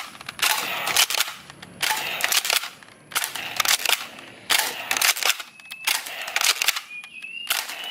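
Toy-gun shots in quick bursts of cracks, about one burst a second.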